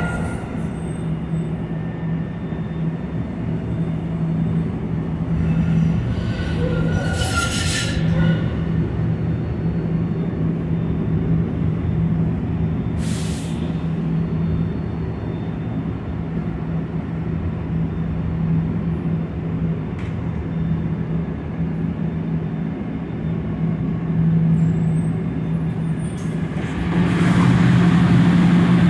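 Inside a SEPTA Kawasaki light-rail trolley car running through the subway tunnel: a steady motor hum over wheel and track rumble, with a couple of brief high-pitched bursts. It gets louder near the end as the car reaches a station.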